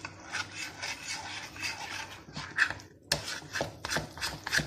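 Metal spoon stirring thick gram-flour batter in a glass dish, scraping and knocking against the glass in quick repeated strokes, about three a second, growing sharper and louder in the last second and a half.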